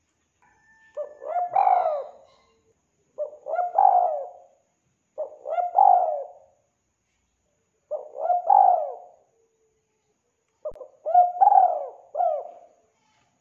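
Spotted dove cooing: five phrases of coos about two to three seconds apart, each a little over a second long.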